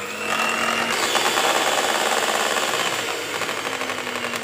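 Electric hand mixer running steadily, its wire beaters whisking eggs in a plastic bowl with a fast rattle over a steady motor hum. The eggs are being beaten until fluffy.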